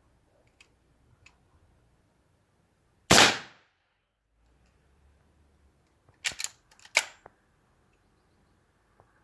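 .22 Hatsan Vectis air rifle firing once about three seconds in, a sharp crack with a short decaying tail. About three seconds later comes a quick cluster of sharp cracks and clacks, with light clicks before the shot.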